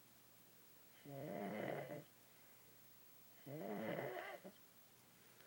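A sleeping baby snoring: two snores, each about a second long, some two and a half seconds apart.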